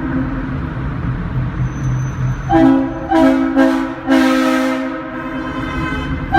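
Leslie S3L Super Tyfon three-chime locomotive air horn blown in a tunnel. After a couple of seconds of lingering echo and rumble, it gives three short blasts and then a longer one of about a second, echoing off the tunnel walls.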